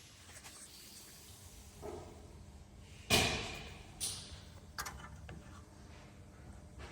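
A sharp bang about three seconds in that dies away over half a second, then a smaller knock about a second later and a couple of short clicks, over faint low background noise.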